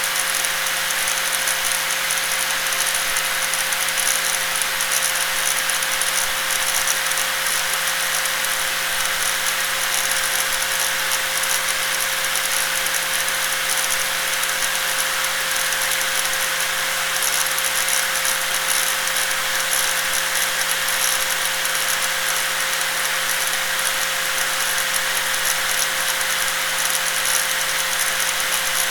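Angle grinder running steadily: a constant hum under a bright, hissing whine.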